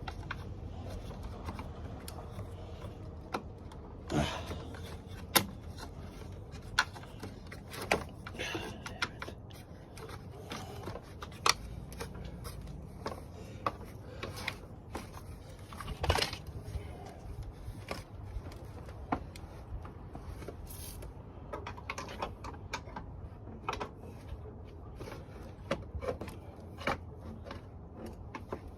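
Irregular clicks, taps and scrapes of hand tools and plastic retaining clips being worked loose on a Jeep Patriot's radiator fan assembly, with the sharpest knocks a little after five seconds, near eleven seconds and near sixteen seconds. A steady low hum runs underneath.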